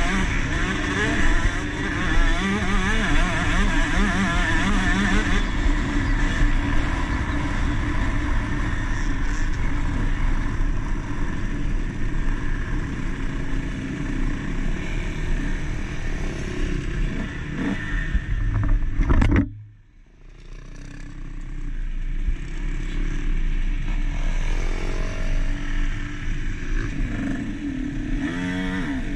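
Two-stroke motocross bike engine, a KTM SX 150, revving up and down hard as it is ridden around the track. About two-thirds of the way through the sound cuts out abruptly, then comes back up over a couple of seconds.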